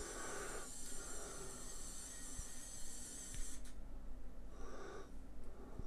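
Faint steady whir of a SwitchBot Curtain robot's small motor driving the curtain along the rod, with two short breaths near the microphone, at the start and near the end.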